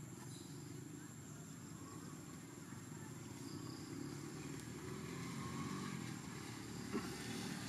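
Low, steady rumble of a vehicle engine running in the background, growing a little louder over the second half, with a single sharp click about seven seconds in.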